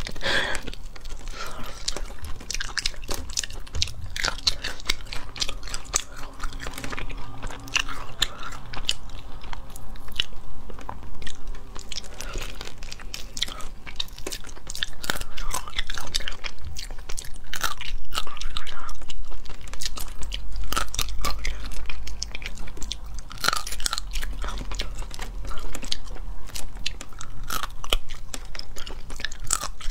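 Close-miked eating of spicy crayfish: crayfish shells cracking as they are peeled, with biting and chewing of the tail meat, a steady run of irregular crunches and clicks.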